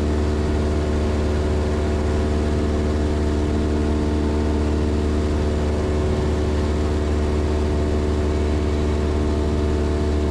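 Cessna 172's piston engine and propeller running steadily at climb power, an even drone that does not change.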